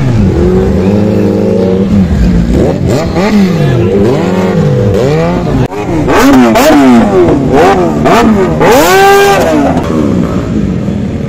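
Sport motorcycle engines being revved hard while standing: repeated throttle blips, the pitch climbing and falling with each one. About halfway through, a second bike, a green Kawasaki Ninja, takes over with quicker, sharper revs that climb higher.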